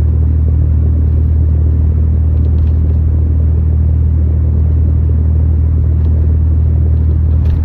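A loud, steady low rumble that does not change, of the kind heard inside a moving car.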